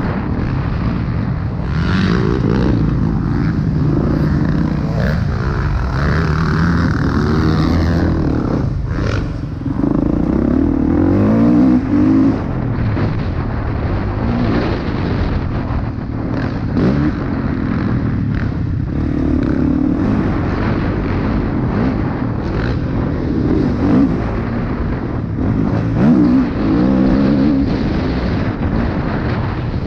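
Motocross bike engine, heard onboard from the rider's own bike, revving up and dropping back again and again through gear changes and off the throttle, several times across the lap.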